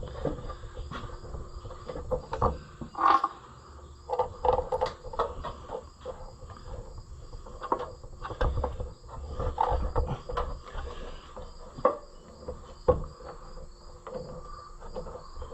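Irregular metallic clinks, knocks and scrapes of hand tools and engine parts being handled during assembly, with crickets chirping steadily in the background.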